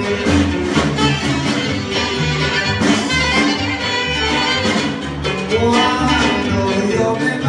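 Live band playing a Sonoran regional Mexican song, with a steady beat in the bass under the melody.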